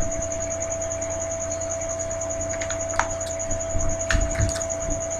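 Steady electrical hum with a faint high-pitched whine, broken by a few light taps in the second half.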